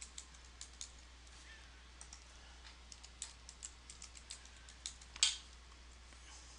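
Keys clicking on a computer keyboard in scattered, faint keystrokes as text is typed, with one louder click about five seconds in. A steady low hum sits underneath.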